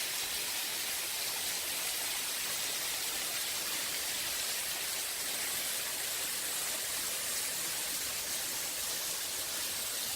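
Small two-step mountain waterfall rushing steadily, an even hiss of falling water.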